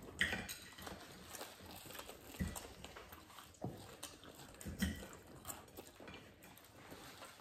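Crispy breadcrumb-coated fried chicken being bitten into and chewed by several people: scattered short, crisp crunches over quieter chewing.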